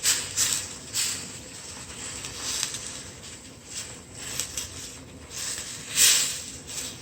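Honey-lemon sauce simmering in a pan on the stove to thicken, giving irregular short hissing and spitting spurts, the strongest about six seconds in.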